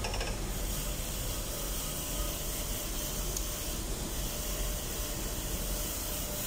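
Electric bench grinder running with the nozzle tip of a marine fuel valve held against its wheel, a steady hiss over the motor's low hum. The wheel is buffing carbon deposits off the nozzle.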